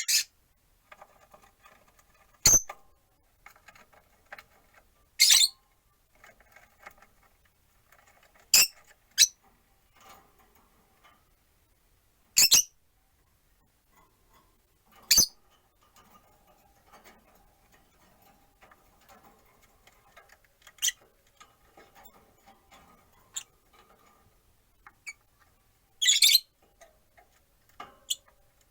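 Rosy-faced lovebirds calling: short, sharp, high-pitched chirps every few seconds, about nine in all, with faint softer sounds in between.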